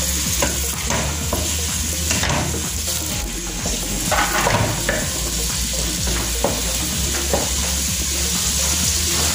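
Chopped red onions frying and sizzling in a stainless steel pot, stirred with a wooden spatula that scrapes and knocks against the pot now and then.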